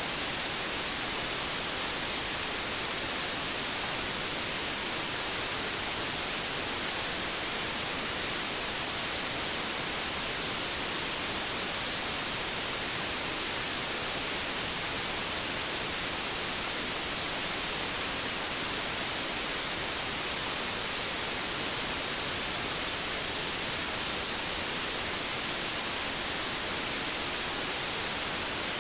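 Steady white noise: an even hiss, strongest in the treble, with no change in level.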